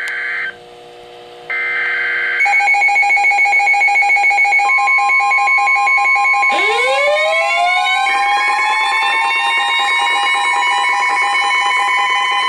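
Emergency Alert System warning tones: the last buzzy data bursts of the alert header with short pauses between them, then a rapidly pulsing two-pitch alert beep, joined a couple of seconds later by a steady tone and, about six seconds in, by a siren that sweeps up in pitch and holds.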